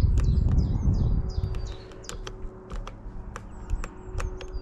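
A songbird singing a quick run of repeated short, falling high chirps, with scattered sharp clicks and a low rumble that fades out about two seconds in.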